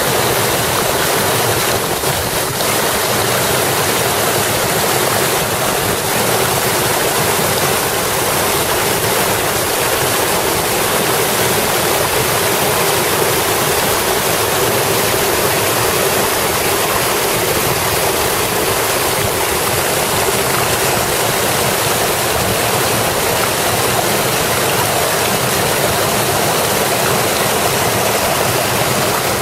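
Mountain stream rushing over small rock cascades and waterfalls, a steady, unbroken splashing of falling water.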